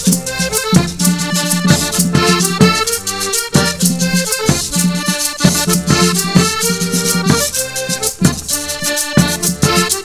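Northern Coclé cumbia played on button accordion over tambor cumbiero, caja, churuca scraper and maracas. This is an instrumental accordion passage without singing, over a steady, evenly spaced percussion beat.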